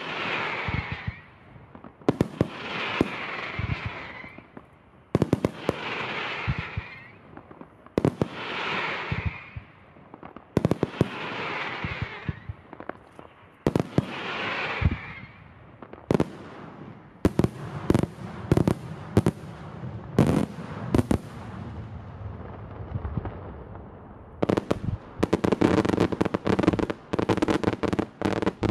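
Daytime aerial fireworks: shells bursting with sharp bangs. At first each bang is followed by about two seconds of crackling, one every two to three seconds. Then single bangs come in quicker succession, and near the end a dense, rapid barrage of bangs.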